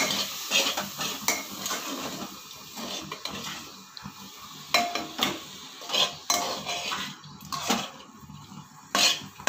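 Metal ladle scraping and knocking against the inside of a pressure cooker pan while stirring sprouted moth beans in masala, in irregular strokes with a few sharper knocks in the second half.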